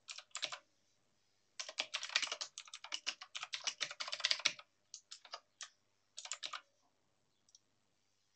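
Typing on a computer keyboard: a short burst of keystrokes, a pause, a long run of rapid typing, then a few scattered key presses that stop about three quarters of the way through.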